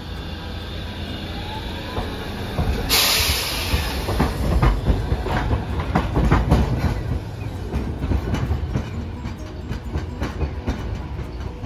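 Hiroshima Electric Railway streetcar rolling past close by, its wheels clicking over the rail joints and points with a low running rumble. A hiss sets in about three seconds in.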